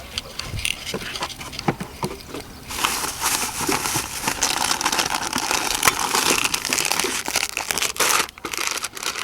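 Crinkling and rustling of plastic packaging being handled. Scattered crackles turn into a dense crinkling about three seconds in, which lasts about five seconds before thinning to a few crackles near the end.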